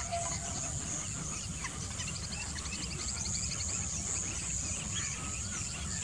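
Outdoor wetland ambience: scattered small bird chirps and a quick trill over a steady high insect hum and a low background rumble.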